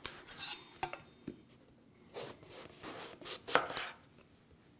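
A kitchen knife slicing through an eggplant and striking a wooden cutting board. There are several separate cuts at an uneven pace.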